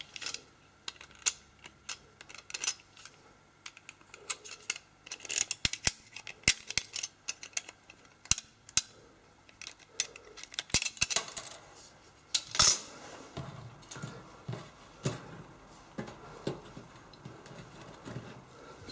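Irregular small clicks, ticks and short scrapes as a thin pry tool and fingers work the antenna part loose from the plastic rear frame of an LG K8 smartphone.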